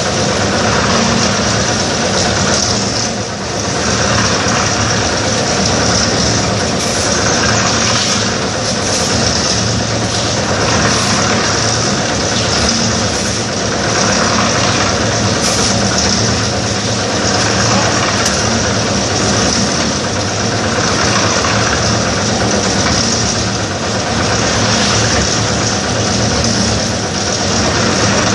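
Engine-driven drum concrete mixer running steadily while mixing concrete, with a hiss that swells and fades about every two seconds.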